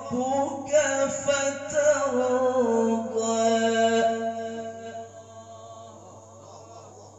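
A man reciting the Quran in a melodic, drawn-out style into a microphone, one voice holding long notes that bend and waver in pitch. The last long note ends about five seconds in and the sound fades away after it.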